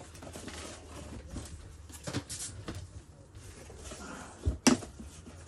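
Small objects being handled and shifted on a workbench during a search for a missing part: light rustling and scattered clicks, with two sharp knocks close together near the end.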